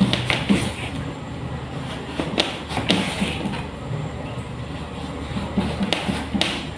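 Kitchen knife cutting a carrot on a plastic cutting board: irregular sharp knocks of the blade striking the board, over a steady low hum.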